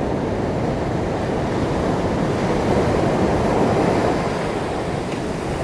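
Ocean surf washing onto a sandy beach: a steady rush of breaking waves that swells a little about halfway through.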